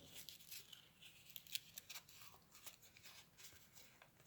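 Faint crinkling and rustling of paper being rolled by hand into a tube around a stick, a string of small irregular crackles with one sharper one about a second and a half in.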